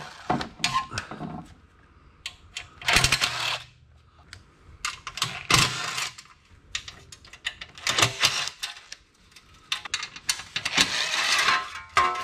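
Cordless impact driver running in about four short bursts as it backs out the bolts holding a motorcycle's skid plate, with small metal clinks in between.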